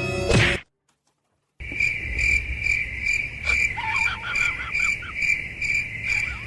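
Crickets chirping in an even pulse, about two chirps a second, starting abruptly after a second of silence. A few faint short squeaks sound in the middle.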